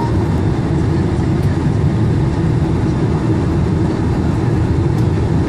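Steady, loud cabin rumble inside a Boeing 747-400 airliner descending on its landing approach, heaviest in the low range, with no changes or separate events.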